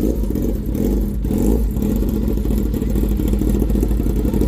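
Kawasaki Ninja ZX-10R's inline-four engine idling steadily.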